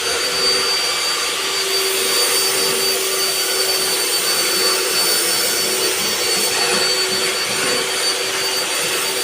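A steady motor drone with a constant high whine over a hiss, unchanging throughout.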